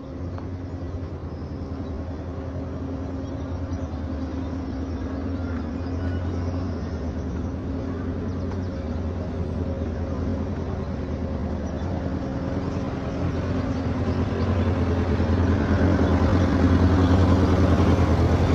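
A motor vehicle engine running steadily, growing gradually louder toward the end.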